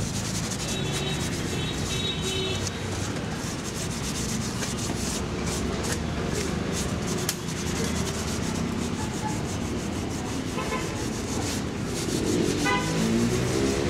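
Paper rubbed over the scooter's number-plate mount, wiping off the dirt left where the old plate was removed: a continuous rubbing with many short scratchy strokes.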